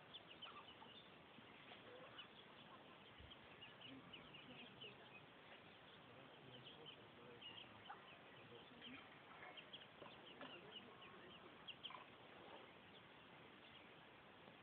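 Ducklings peeping faintly: many short, high chirps in quick, irregular succession.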